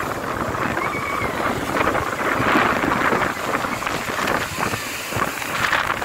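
Surf washing up on a sandy beach, with wind buffeting the microphone: a steady rushing noise.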